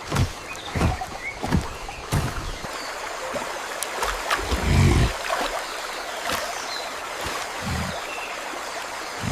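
Steady hiss of heavy rain and running water, broken by a series of deep, short thuds or splashes, the loudest a little under five seconds in.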